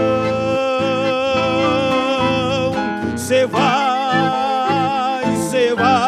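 Male voice singing a slow song in Portuguese, holding one long note for about three seconds, then a second phrase with vibrato ending on the word "coração". Nylon-string guitar and piano accordion accompany him.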